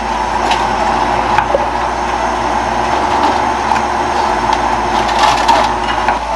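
Frozen gyoza sizzling and crackling in a hot frying pan on an induction hob, a steady hiss with many small pops.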